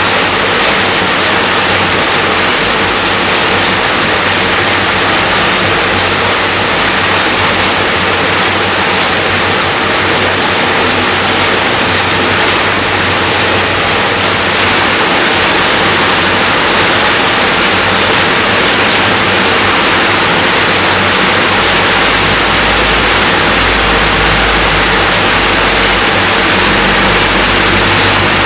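Steady, dense rainfall hiss. The level steps up slightly about halfway through, and a low rumble joins about three-quarters of the way in.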